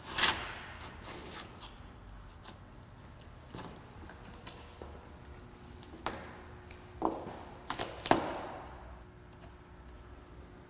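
Steel windshield removal knife being pushed along the edge of the windshield to cut through the urethane adhesive: scattered sharp clicks and knocks of the blade against the glass and frame, a loud one at the start and a cluster of several about eight seconds in, the last of them the loudest.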